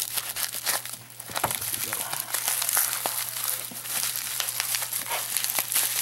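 Plastic bubble wrap crinkling and crackling continuously as it is cut and pulled open by hand from around a heavy padlock.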